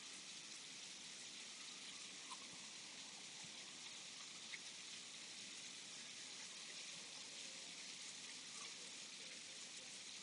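Faint, steady background hiss with a few tiny, faint ticks; nothing else stands out.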